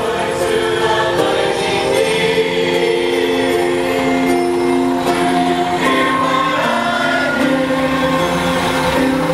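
A choir singing a Christmas carol over music, in long held notes that step from pitch to pitch.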